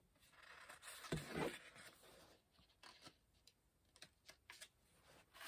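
Near silence: quiet room tone with a faint rustle in the first two seconds, then a few soft clicks.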